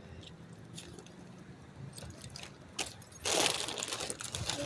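Handling of a plastic water bottle: a few light clicks, then a louder stretch of crinkling and rustling about three seconds in.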